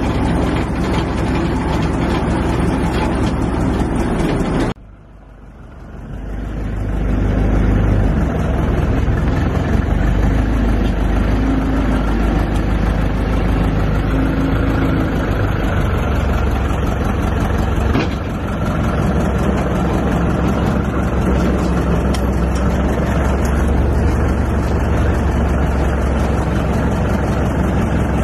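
Mobile boat crane's engine running steadily with a deep low rumble. The sound drops out sharply about five seconds in and builds back up over the next couple of seconds.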